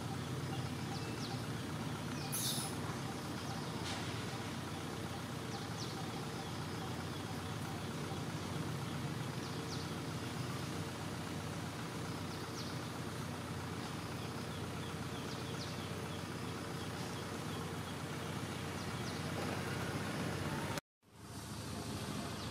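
Steady outdoor background noise with a low hum and a few faint, short high chirps scattered through it. The sound drops out for a moment near the end.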